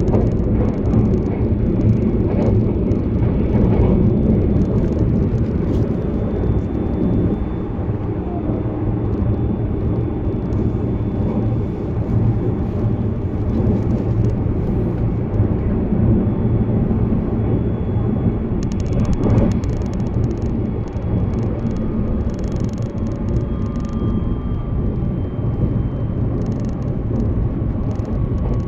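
Running noise inside a limited express electric train at speed: a steady rumble of wheels on rail. Faint whining tones drift slowly in pitch above it, and a brief rattling rush comes about two-thirds of the way through.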